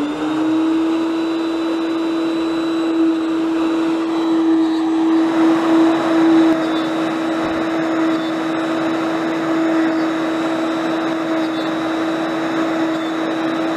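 Techno CNC router spindle running at a steady whine after spinning up, its bit plunging and cutting binding-comb slots in 1/8 inch plywood. A rougher cutting hiss joins the whine about five seconds in.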